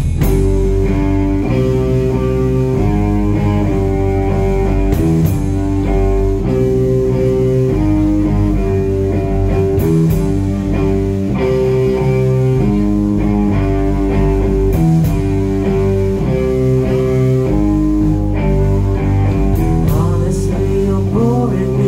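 Live rock band playing an instrumental song intro: electric guitar and bass guitar riffing over a drum kit, with cymbal crashes about every five seconds. A singing voice comes in near the end.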